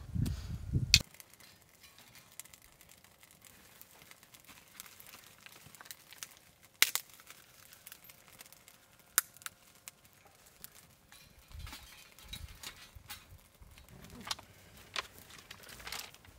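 Small wood fire catching in a Bush Buddy twig stove: faint crackling with sharp snaps every few seconds. A low rumble in the first second.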